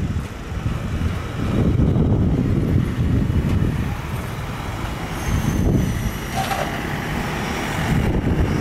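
Singapore Airlines Boeing 787-10's Rolls-Royce Trent 1000 engines running at taxi power: a steady, heavy low rumble, with a faint high whine about halfway through.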